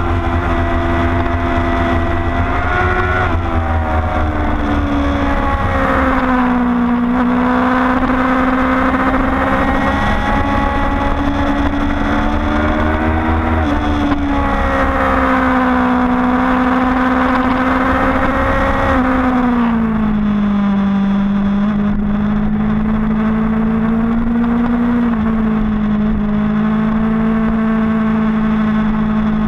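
A motorcycle engine running hard on a race track. Its note climbs steadily under throttle and drops sharply about four seconds in and again near two-thirds of the way through. Wind rushes over the microphone, strongest in the first few seconds.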